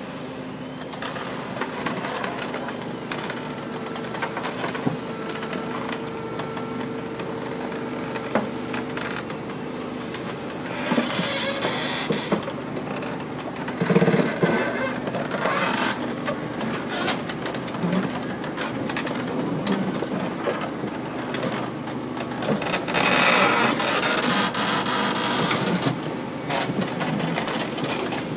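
Komatsu PC450 crawler excavator's diesel engine running steadily as the machine drives its steel tracks up a trailer's loading ramp. Clanks and knocks of the track plates on the ramp come throughout, loudest about halfway through and again near the end.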